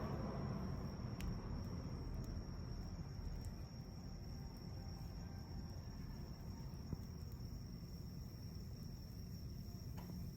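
A small twig fire burning in a compact wood stove: a low steady rumble with a few faint crackles, over a steady high-pitched insect trill.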